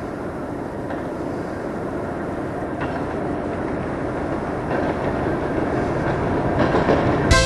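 Train running on rails: a steady rumble that slowly grows louder, with a faint wheel clack about every two seconds. Music starts right at the end.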